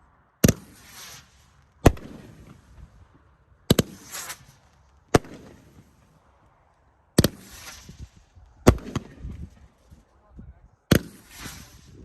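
A 500-gram consumer firework cake (Winda's Storm Chaser) firing shots: seven sharp reports one and a half to two seconds apart, each followed by a fading hiss as the shell breaks.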